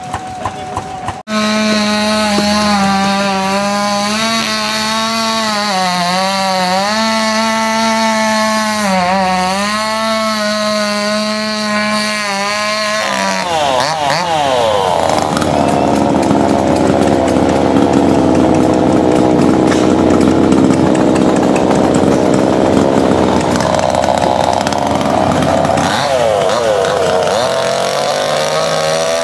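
Proyama gasoline chainsaw running with a wavering pitch, then settling into a rougher, noisier sound for about ten seconds as it cuts into a wooden stump for chainsaw carving, then climbing back up in pitch near the end.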